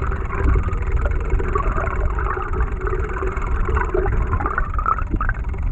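Bladed jig (chatterbait) heard underwater as it is retrieved: its vibrating blade gives irregular rattling clicks over a steady low rush of water.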